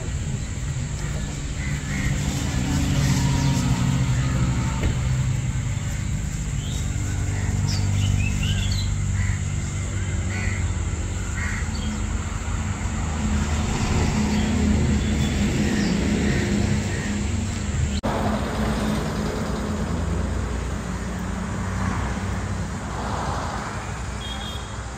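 Superbike engines running steadily, a low continuous engine note, with birds calling now and then.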